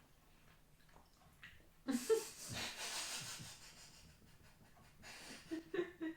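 A person's long, breathy exhale lasting a couple of seconds, beginning with a short vocal sound, with a few brief vocal sounds near the end.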